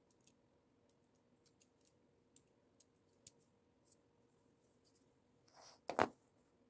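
Plastic LEGO pieces clicking faintly as they are handled and pressed onto a small model. Near the end there is a brief scrape, then a single louder knock as the model is set down on the cutting mat.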